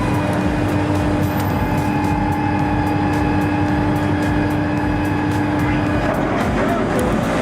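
Heavy engine running steadily, a dense low rumble, with background music over it.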